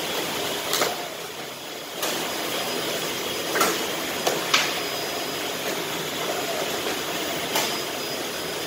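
Packing-line conveyors and machinery running with a steady mechanical noise, broken by a handful of sharp clacks at irregular intervals.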